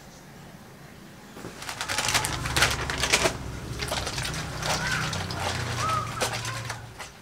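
Wet clothes being scrubbed and wrung by hand: irregular squelching and splashing strokes, starting about a second and a half in.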